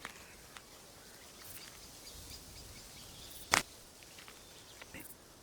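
Quiet natural outdoor ambience with a few faint clicks, and one short, sharp sound about three and a half seconds in.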